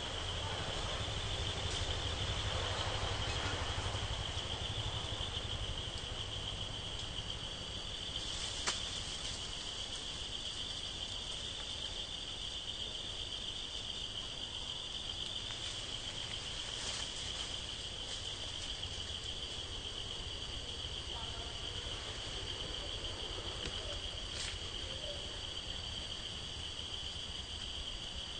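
Steady, high-pitched trilling of insects in forest, unbroken throughout, with a fainter second insect joining higher up, over a low rumble. A sharp click stands out about nine seconds in, with another near the end.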